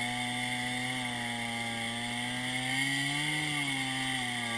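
Two-stroke chainsaw running steadily while cutting into lake ice, its engine note rising briefly and settling back about three seconds in.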